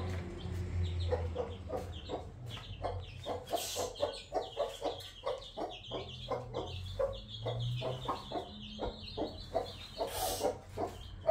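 Chickens clucking, a quick run of many short calls.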